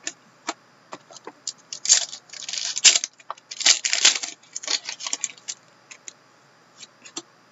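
Trading cards handled by hand: light clicks and taps as cards are flicked and set down, with two longer rustling scrapes of cards sliding against each other about two and four seconds in.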